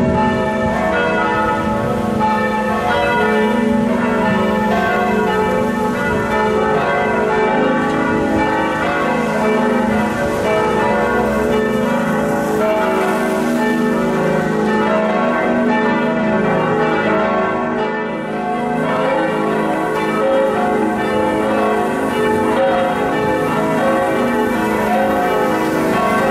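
Church bells pealing, several bells ringing together without a break.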